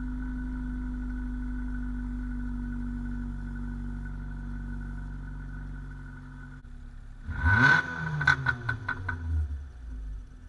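Car exhaust heard close to the tailpipe: the engine idles steadily, then about seven seconds in it is blipped once and the revs rise sharply and fall back, with a quick run of sharp crackles as they drop.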